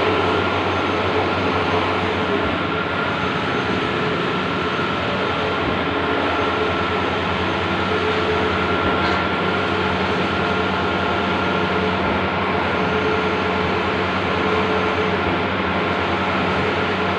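Large-format outdoor banner printer running while it prints, a loud, steady mechanical whir with a faint high steady whine through it.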